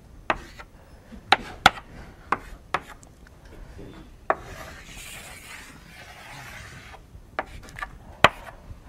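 Chalk on a blackboard: irregular sharp taps as the chalk strikes the board, with scraping strokes between them and a longer scrape about halfway through, as curved lines and arrowheads are drawn and a label is written.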